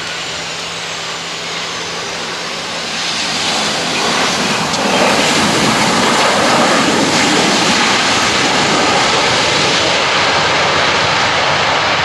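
Boeing 737-800 jet engines: a broad rushing jet noise that swells over a few seconds and then holds loud and steady.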